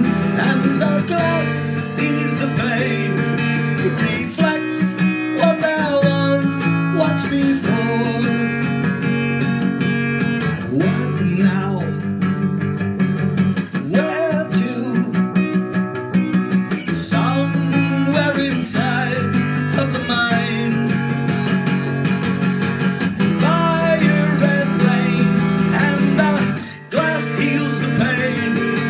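Acoustic guitar strummed in steady chords while a man sings along, with a brief break in the playing near the end.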